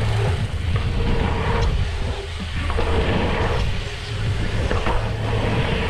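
Wind buffeting a GoPro microphone on a dirt jump bike riding fast along a dirt track, with a heavy rumble and tyre-on-dirt noise that swells and eases every second or so through the jumps and berms.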